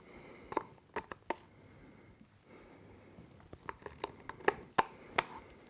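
Light, sharp clicks and taps from a small clear plastic cup of epoxy resin being handled and tipped while pouring. They come in two clusters: a few about a second in, and a quicker run from about four to five seconds in.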